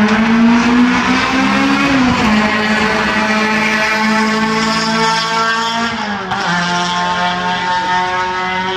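Go-kart engine running at speed. Its note climbs a little, dips about two seconds in and again around six seconds in, then holds steady.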